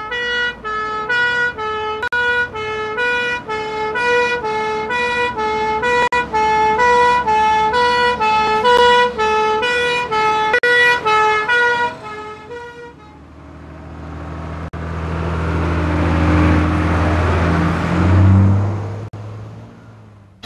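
Fire engine's two-tone siren, alternating steadily between a high and a low note, stops after about twelve seconds. A fire engine's diesel engine and its tyres on the wet road then swell as it drives past and fade away near the end.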